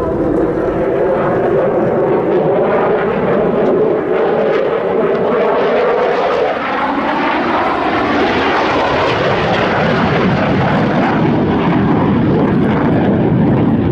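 An F-16 fighter jet's engine heard loud and continuous as the jet flies past. Its pitch falls steadily over the first half, then a broad rushing jet noise swells around the middle and stays strong as the jet climbs away.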